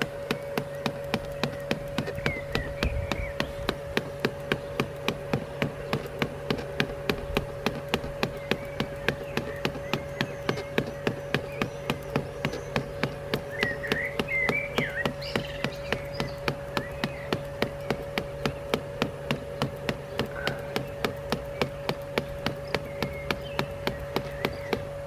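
Worx Landroid M700 robotic lawnmower humming steadily with a regular tick about three times a second, its motors still driving the rear wheels while they spin buried in place: the mower is stuck and cannot free itself.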